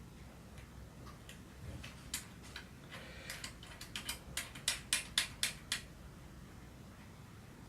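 A run of small sharp clicks and taps from handling a Zhiyun Smooth 4 smartphone gimbal while its balance is adjusted: scattered at first, then several a second and loudest around the middle, stopping about six seconds in.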